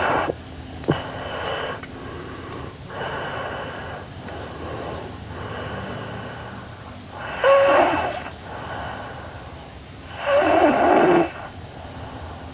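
A sleeping girl snoring, with softer breaths in between and two loud snores in the second half, their pitch wavering.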